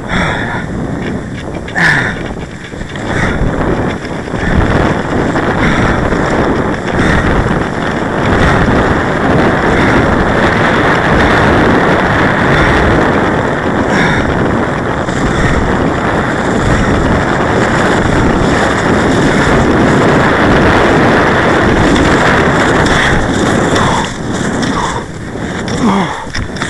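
Wind buffeting the microphone of a skier-worn camera, mixed with cross-country skis sliding on packed snow. The rushing grows louder about eight seconds in, holds steady, and eases near the end, with a few brief clicks along the way.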